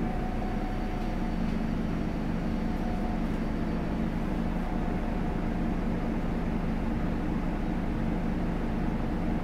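Solaris Urbino 18 articulated city bus's upright-mounted diesel engine running steadily, a low hum holding an even pitch.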